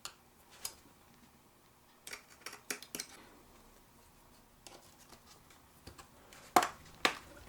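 Plastic clicks and light scrapes of a prying tool working along the seam of a laptop's plastic base cover, with the cover's snap clips clicking as they start to give. The clicks come irregularly, the sharpest one about six and a half seconds in.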